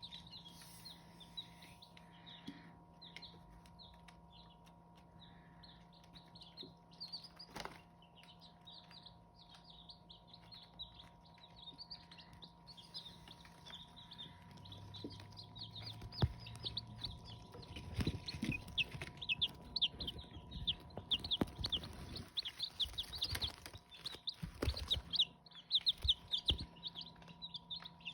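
A brood of Hmong chicken chicks peeping continuously, many short high peeps overlapping. A few dull knocks come in the second half, over a faint steady hum.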